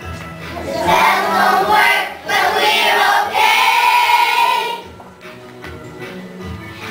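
A group of young children singing together in unison on stage, with a long held note about four seconds in; the singing drops away for the last couple of seconds.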